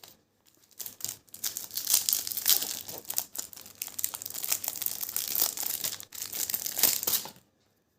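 Thin transparent plastic trading-card pack crinkling as it is torn open and handled, a run of crackles that stops about seven seconds in.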